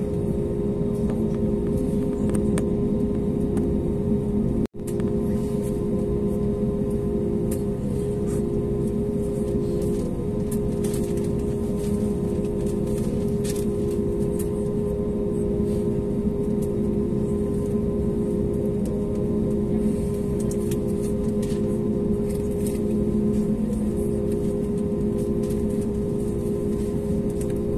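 Steady droning hum inside the cabin of an Airbus A320neo standing still on the ground, with a steady humming tone and a second tone that pulses on and off over a low rumble. The sound cuts out for an instant about five seconds in.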